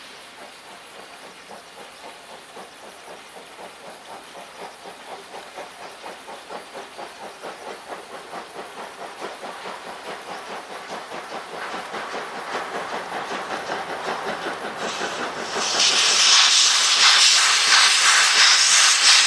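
Steam locomotive working a train, its exhaust chuffing in rapid, regular beats that grow steadily louder as it approaches. About sixteen seconds in, a loud steam hiss suddenly joins the chuffing as the engine draws close.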